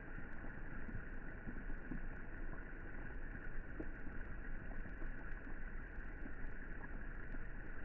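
Light rain falling into a swimming pool: a steady hiss over a low rumble, with scattered faint drop ticks.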